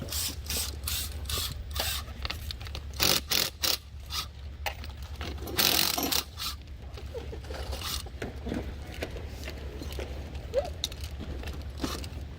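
Irregular metallic clicks and scrapes of bolts, washers and aluminium clamping plates being handled and fastened, with a longer scrape about six seconds in over a steady low hum.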